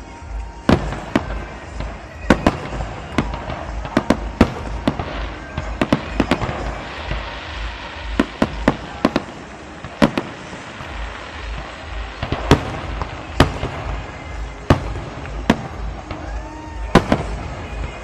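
Fireworks display going off in an irregular run of sharp bangs, one or two a second, with a stretch of dense crackle near the middle.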